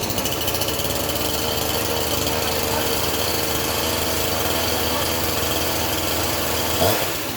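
Husqvarna 353 two-stroke chainsaw held at high throttle, running steadily, then its pitch falls back toward idle near the end as the throttle is released, just after starting with the choke off.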